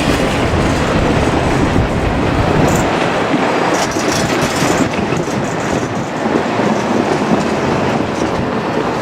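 Two-car KiHa 47 diesel railcar train running past at close range, wheels clattering over the rail joints. The deep rumble drops away about three seconds in, leaving the clatter and wheel noise.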